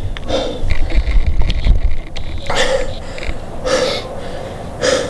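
A man breathing hard, out of breath from a steep uphill hike: four heavy breaths, the first near the start and then three more about a second apart.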